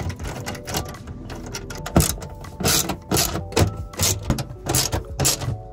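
Hand ratchet with a socket extension clicking as it turns the bolts of a car's underbody access panel, in quick strokes about two a second.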